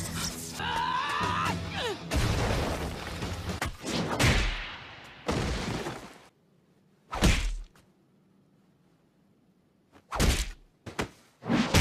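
Anime fight sound effects: a series of about six heavy blows and impacts, spaced out with near-silent pauses between them. Dramatic background music ends about two seconds in.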